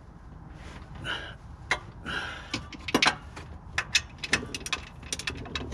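Hand tools clinking and knocking against metal on a car's underside: a string of irregular sharp clicks, with two short scrapes about one and two seconds in.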